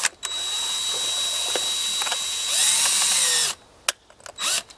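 Cordless drill/driver running for about three seconds, driving a short coarse-thread screw through a metal mounting bracket into a thick vinyl siding mounting block, and getting louder in the last second as the screw seats. Two short bursts of the motor follow near the end.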